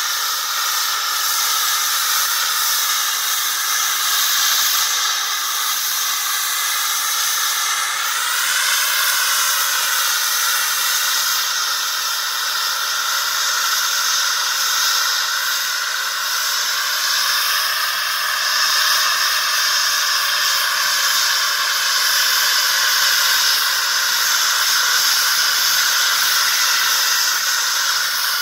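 RA Microturbines 500 model jet turbine running in its housing: a loud, steady hiss with a layered high whine. Its pitch swells up and falls back about eight seconds in, and rises slightly again a little past the halfway point.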